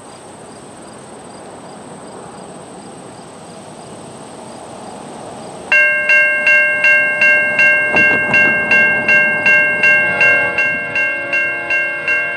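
Approaching freight train rumbling faintly and growing louder. About six seconds in, a railway grade-crossing bell starts ringing loudly, close to three strikes a second. About ten seconds in, a lower chord of steady tones joins under the bell.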